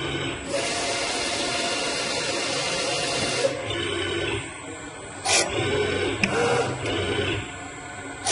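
Homemade three-head CNC milling machine running a G-code program: its drives whine at shifting pitches as the axes move. A loud hiss fills the first few seconds, and there are a few short knocks later on.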